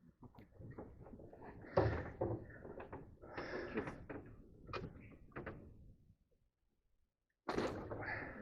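Irregular knocking and clattering from things being moved about in the boat, with a louder knock near the end.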